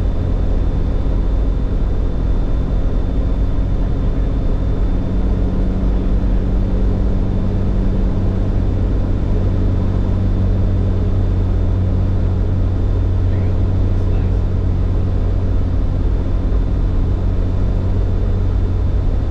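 Cirrus SR20's piston engine and propeller droning steadily on final approach, heard inside the cockpit.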